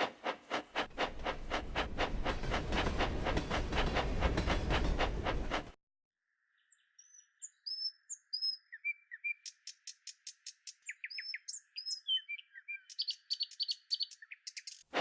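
A fast, even chugging over a low rumble that cuts off suddenly about six seconds in; after a moment's silence, birds chirp and sing in short high notes, thin and without any low sound, over a faint steady hum.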